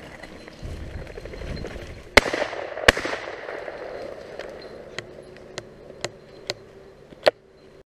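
Two shotgun blasts under a second apart, each trailing a long rolling echo, followed by several fainter sharp cracks.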